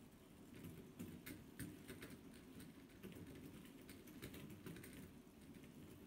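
Faint, irregular light clicking and ticking from magnetic fidget spinners being flicked by a finger and turning one another, starting about half a second in.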